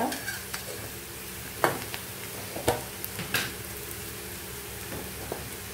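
Sliced onions and green chillies sizzling steadily in oil in a pan, with several sharp clicks scattered through.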